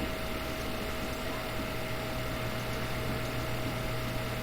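Steady background hiss with a low electrical hum and a faint steady whine; no burp is heard.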